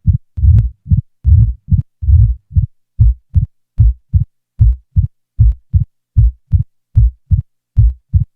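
Simulated heart sounds of mitral stenosis at about 75 beats a minute, with the diastolic murmur removed: a loud first heart sound, the second sound and an opening snap. About three seconds in the beats turn shorter and crisper, falling into even pairs.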